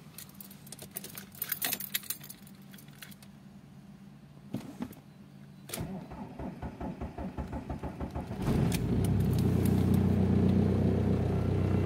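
Keys jangling in the ignition, then the VW Golf Mk3's 1.9 TDI (AHU) diesel cranking in an even rhythm for about three seconds, unaided by glow plugs, before it catches and settles into a loud, steady idle. It is running on a mix of 80% waste motor oil and 20% petrol.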